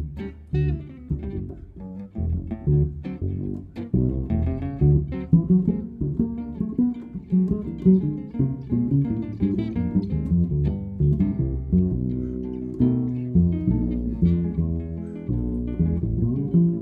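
Jazz duo of double bass and hollow-body electric guitar playing live: a plucked walking bass line under a flow of picked guitar notes.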